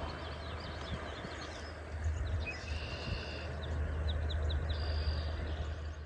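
Shoreline ambience: a steady low rumble under many short, high bird chirps, with a couple of brief whistled notes near the middle and again near the end.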